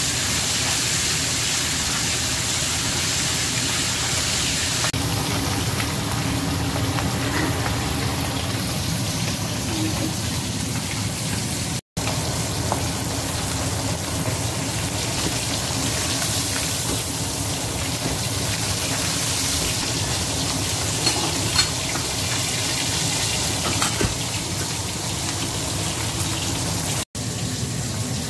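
A whole flour-dusted fish frying in hot oil in a stainless-steel wok: a steady sizzling hiss with a few louder pops of spattering oil about three-quarters of the way through. The sizzle cuts out briefly twice.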